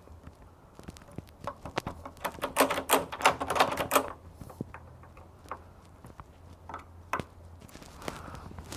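Rapid run of small clicks and metal rattles from door handle hardware being worked by hand, densest about two to four seconds in, then a few single clicks.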